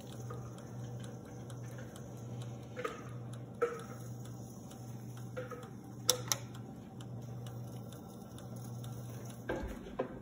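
Cuisinart air fryer toaster oven running, its fan giving a steady low hum, with a few light clicks. About six seconds in, a sharp double click as a button on the oven is pressed.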